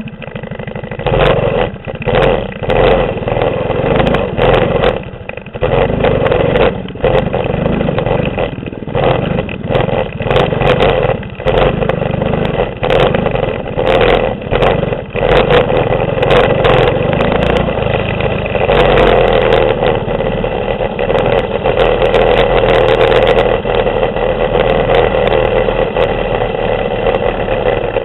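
Mini bike's 6.5 hp clone single-cylinder four-stroke engine revving up and down while ridden over a rough dirt trail, with frequent knocks and rattles from the bumps. Over the last third the engine runs more steadily with fewer knocks.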